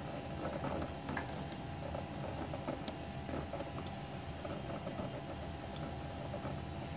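Cables and plastic parts being handled inside a machine: scattered light clicks and rustles over a steady hum.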